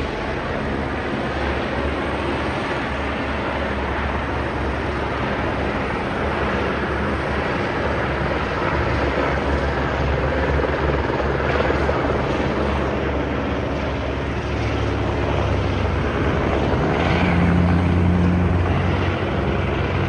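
Firefighting aircraft droning overhead: a steady engine and propeller noise with low hum, growing louder about fifteen seconds in.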